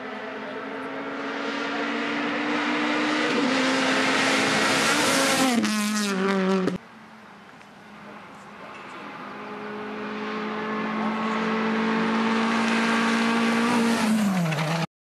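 Rally cars at full throttle approaching along a stage. The first engine climbs in revs with two gear changes that drop its pitch, then cuts off suddenly about seven seconds in. A second, a Honda Civic hatchback rally car, builds and passes close near the end, its engine note falling as it goes by.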